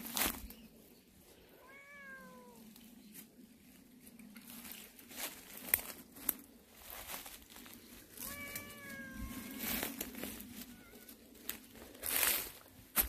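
A cat meowing twice: a short falling meow about two seconds in and a longer one past the middle. Footsteps crunch on dry leaves and twigs around it, loudest near the start and end.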